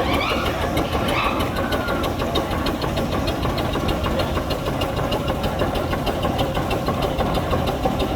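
Steam traction engine running with a steady, rapid, regular beat.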